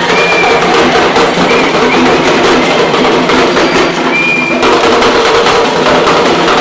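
An ensemble of parai frame drums struck with sticks, playing a dense, fast, loud rhythm. Two short high tones sound over the drumming, one shortly after the start and one about four seconds in.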